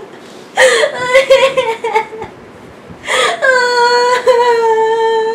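A woman crying: halting sobs that fall in pitch over the first two seconds, then a long, high wail held steady from about three and a half seconds in.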